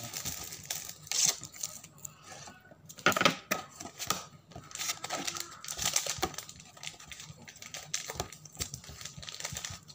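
Printed wrapping on a jumbo cup-noodle bowl being torn open and crinkled by hand, in irregular bursts, the loudest about a second and three seconds in.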